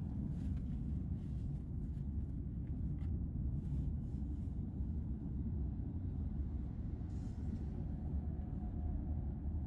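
Steady low rumble of a moving car: road and engine noise heard from the car as it drives along.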